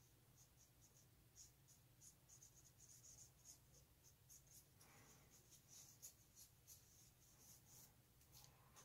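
Faint, irregular scratchy strokes of a paintbrush working brown paint onto bare spots of wooden dowel pieces, about two to three strokes a second.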